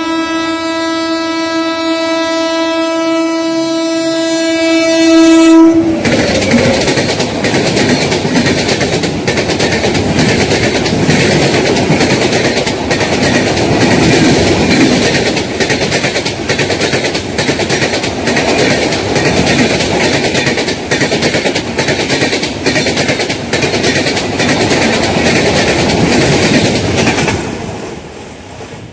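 WAP-7 electric locomotive's horn held in one long steady blast for about six seconds, cutting off as the train arrives, then the Duronto express rushing past at about 110 km/h, its wheels clattering over the rail joints in a rapid rhythm, fading near the end.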